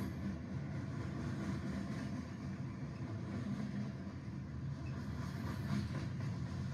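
Model train running steadily on its track: the locomotive's small electric motor humming and the wheels rumbling along the rails.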